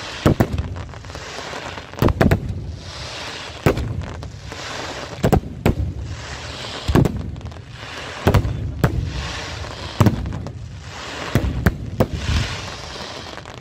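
Aerial firework shells bursting in a string of sharp bangs, one every one to two seconds and sometimes two close together, each followed by a crackling hiss as the stars spread and fall.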